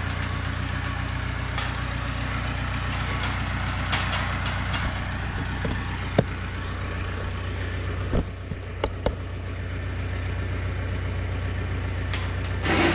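An engine idling steadily with a low hum. A few sharp metal knocks from steel pen gates being moved: one about six seconds in, three more around eight to nine seconds.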